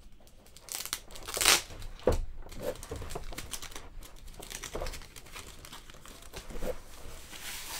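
Plastic protective sleeve crinkling and crackling as it is handled and pulled off a speaker bar, with tape being torn from it; the loudest crackle comes about a second and a half in.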